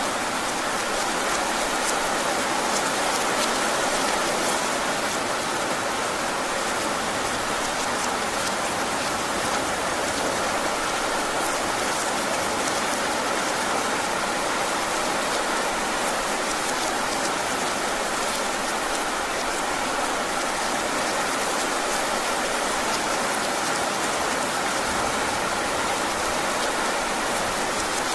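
Steady heavy rain falling, an even hiss with individual drops tapping now and then.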